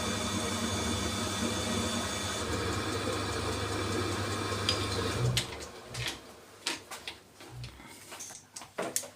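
Electric motor of a workshop machine tool running with a steady hum, switched off about five seconds in, followed by a few scattered knocks and clatters of metal parts being handled.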